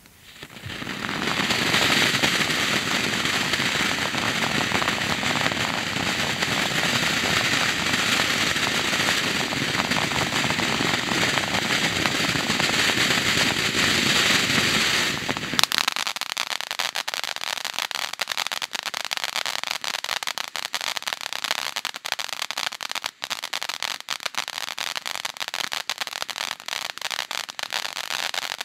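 Howler Fountain consumer firework fountain burning: a loud, steady rushing hiss of spraying sparks for about fifteen seconds, then switching abruptly to dense, rapid crackling.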